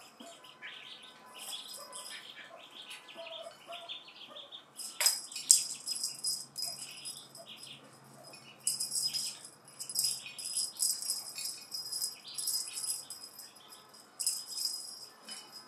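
A bungee cat toy rattling in short jangly bursts as a kitten bats and leaps at it, loudest about five seconds in and again in a run of bursts from about nine to thirteen seconds.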